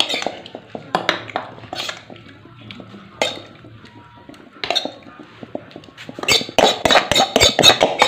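Dishes knocking and clinking during a meal: scattered single knocks, then a dense run of clatter in the last couple of seconds.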